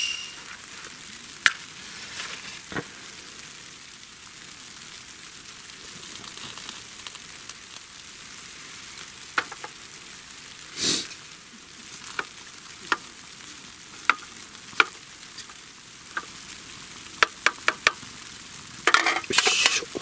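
Solid-fuel tablet stove burning under an aluminium mess tin with a soft, steady crackling hiss. Scattered light clicks and taps come from the tin being handled, with a short louder rustle about halfway and a cluster of knocks near the end.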